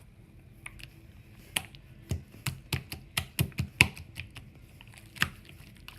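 Slime being squeezed and poked by hand, giving about a dozen sharp, irregular clicks and pops, the loudest a little before the end.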